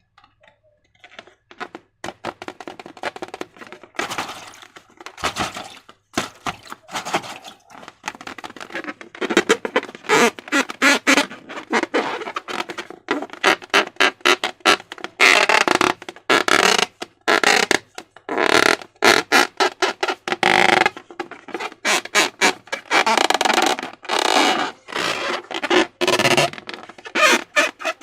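Slime being squeezed and worked by hand, making wet squelching sounds in quick, irregular bursts that get louder about ten seconds in.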